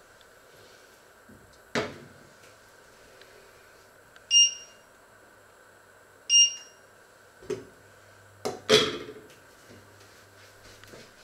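Two short electronic beeps about two seconds apart from a glass-top electric hob's touch controls as a cooking zone is set. Around them come knocks and a clatter of pots, a jug and lids being set down on the hob, the loudest clank near the end.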